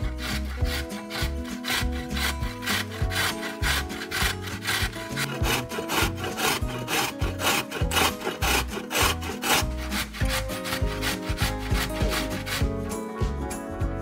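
Rapid rhythmic scraping strokes, several a second, of vegetables being worked against a wooden cutting board, over steady background music. The strokes stop about 13 seconds in.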